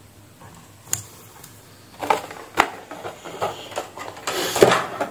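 Handling noise of multimeter test probes and their leads on a workbench: a single sharp click about a second in, then a cluster of clicks and rattling over the last three seconds, loudest near the end.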